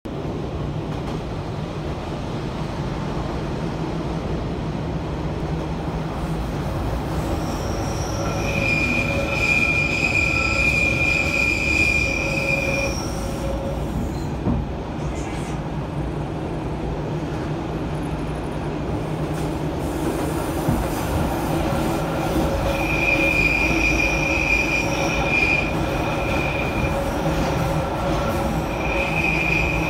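NStCM metre-gauge electric train running, heard from inside the passenger car as a steady rumble. A high, steady wheel squeal comes in about 8 s in for several seconds, again from about 23 s, and once more near the end: the wheels squealing on the line's curves.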